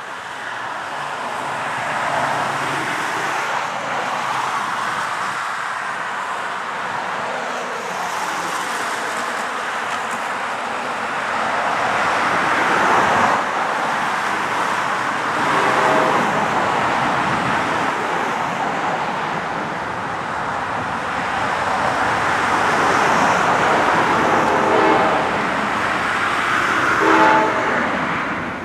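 An approaching Amtrak locomotive's air horn sounds a chord in short blasts from about halfway through, growing louder toward the end, over a steady rushing of road traffic.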